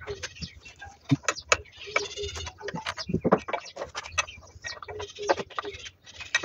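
Scattered clinks and knocks of metal parts and tools being handled, with a bird calling in short repeated notes at times in the background.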